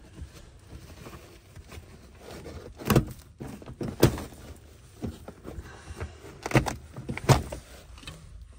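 An old rubber floor mat and its padding being pulled up and torn from a car's floor pan. It is a rustling scrape broken by several loud, sharp rips from about three seconds in.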